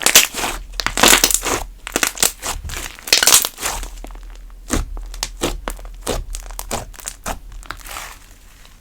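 Cream slime being squished and stretched, with dense crackling squelches for the first few seconds, then sparser pops and clicks.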